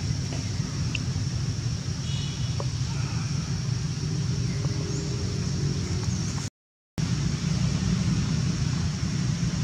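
Steady outdoor background noise: a low rumble with a steady high hiss over it and a few faint short chirps about two seconds in. The sound drops out completely for about half a second about two-thirds of the way through.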